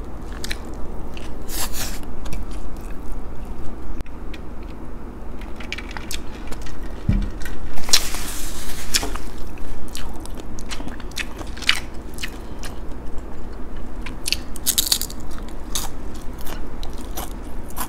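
A person chewing close to the microphone, with crunches and wet mouth clicks, eating a breakfast of fried dried fish (danggit), beef tapa and rice. A longer crunch comes about eight seconds in.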